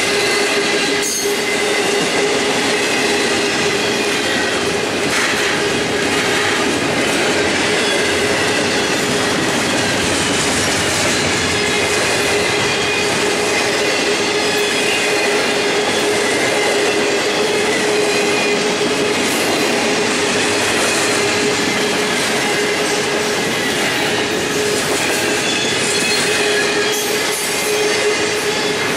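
CSX double-stack intermodal freight cars rolling past: a steady, even rumble and clatter of steel wheels on rail, with a steady squealing tone held over it.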